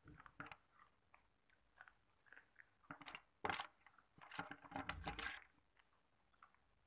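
Plastic spoon scooping hard ice cubes in an aluminium foil tray. There is a sharp clink about three and a half seconds in, then about a second of ice rattling and scraping against the spoon and foil. A few faint crunches come right at the start.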